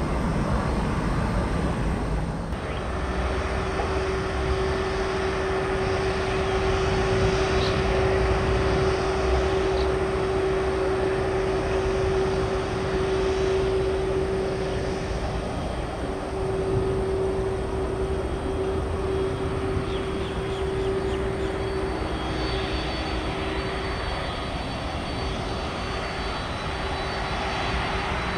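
Jet airliner engines running, a steady rush of noise. A steady humming tone comes in about two and a half seconds in and holds on.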